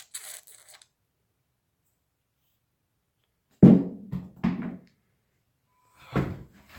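Dull knocks on a hard surface. Three come in quick succession about three and a half seconds in, the first the loudest, and another run of knocks starts near the end. A brief faint rustle comes at the very start.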